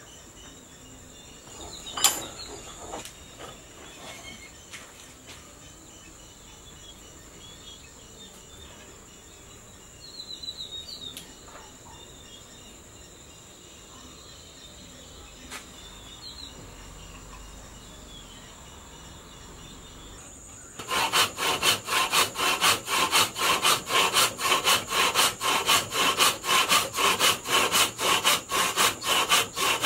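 A wooden blank (Boobu wood) clamped upright in a vise is cut with a hand saw: loud, even back-and-forth rasping strokes, about three a second, starting about two-thirds of the way through. Before that, only a steady high insect drone and one sharp knock about two seconds in.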